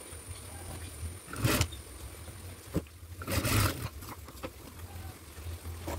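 Fabric rustling and being cut with scissors: a short burst about a second and a half in, a click, then a louder stretch of snipping and cloth handling around three and a half seconds in, over a steady low hum.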